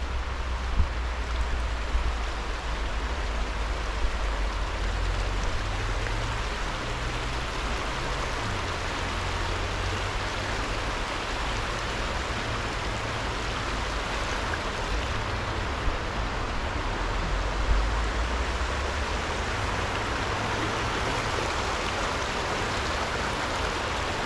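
Creek water rushing steadily, with a low rumble underneath.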